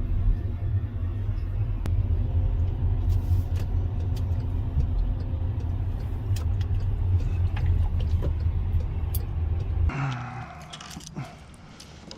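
Low, steady rumble of a car driving, with a few light clicks and rattles over it; it cuts off abruptly near the end.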